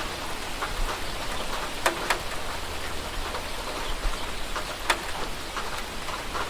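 Steady rain falling, an even hiss with scattered drops, a few louder drips landing close by: two together about two seconds in and one near five seconds.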